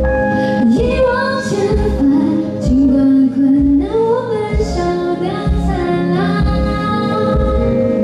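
A woman singing a melody to her own strummed steel-string acoustic guitar, with a steady repeating bass pulse under the voice.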